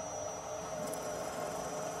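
Electric motor of a machine tool running at steady speed after spinning up, a steady whine with a faint higher whine above it.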